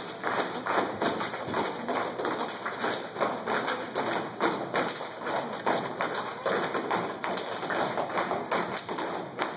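Step team stepping in unison: rapid, rhythmic stomps and body claps.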